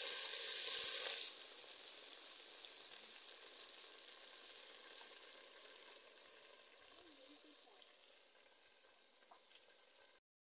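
Chopped tomatoes sizzling in hot oil in an aluminium pot, stirred with a wooden spatula at first. The sizzle is loud for about the first second, then drops to a quieter steady hiss that fades slowly, and it cuts out briefly near the end.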